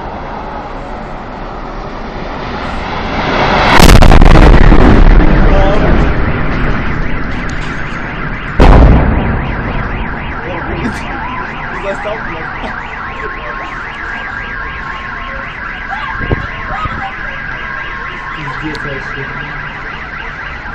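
Propane tanks exploding at a fuel station. A rumbling blast swells over about a second to a peak four seconds in and rolls on for a couple of seconds, then a second sharp boom comes near nine seconds. After that, car alarms sound in a steady repeating pattern.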